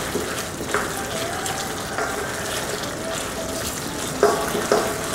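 Thick cornstarch-thickened soy and brown sugar sauce bubbling and sizzling in a wok as a wooden spoon stirs the pork through it. The sauce is being reduced and kept moving so it doesn't stick. The spoon scrapes the pan now and then, twice in quick succession a little after four seconds.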